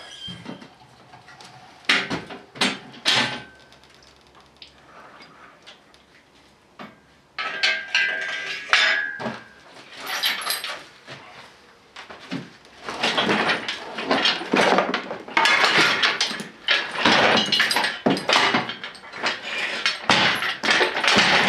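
Metal tools and parts clanking: a few sharp knocks, then a long stretch of busy clattering and scraping that grows denser toward the end.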